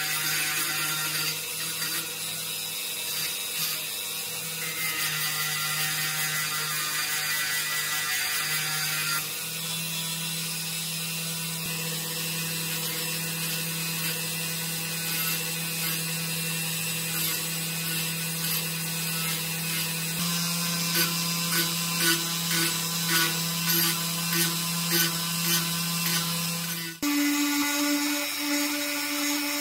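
Handheld rotary tool with a sanding drum whining steadily as it sands cast iron, then swelling and easing about once a second as it is pressed on and lifted off the metal. Near the end it gives way abruptly to a small electric drill running at a higher pitch.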